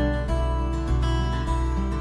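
Instrumental background music led by a guitar, with notes changing in a steady rhythm over a low bass.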